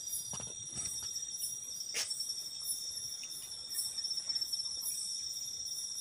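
Night-time forest insect chorus: a steady high-pitched trill with a higher pulsing buzz two or three times a second. There are a few faint clicks, and one sharper click about two seconds in.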